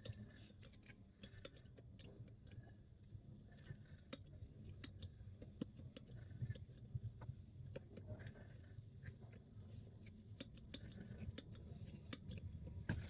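ERA padlock being worked with a multi-pick: faint, irregular small metallic clicks and scrapes of the pick in the keyway.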